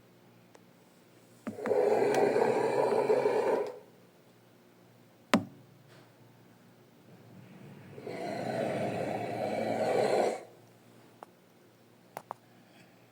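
Andrewsarchus creature sound effects from Primal: two long rasping growls, the second swelling up more slowly, with a sharp snap between them and a few faint clicks near the end.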